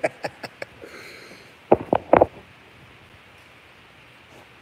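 A man laughing: a fast run of short breathy ha's that trails off, then two or three louder laughing bursts about two seconds in.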